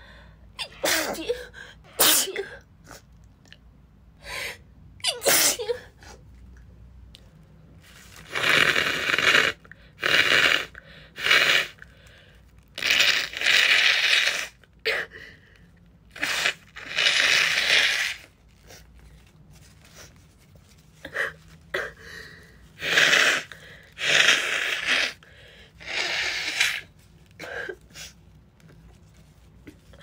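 A woman's sneezing fit from a cold: a dozen or more sneezes in quick succession, with barely a breath between them, crowding together from about eight seconds in.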